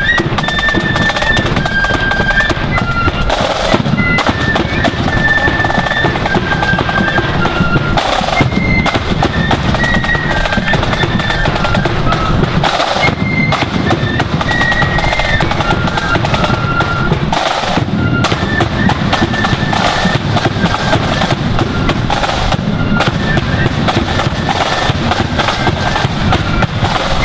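Marching flute band playing a tune: flutes carry the melody over rolling snare drums, with strong accents every four to five seconds.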